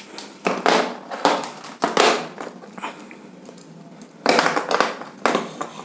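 Plastic modular electrical switches being picked up and handled on a table: a string of short clattering, rustling handling noises, the loudest two coming about four and five seconds in.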